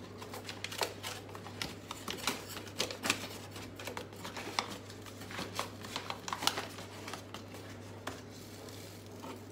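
Plastic bag of granulated sugar being handled and spooned from: irregular crinkles, rustles and light clicks, with a steady low hum underneath.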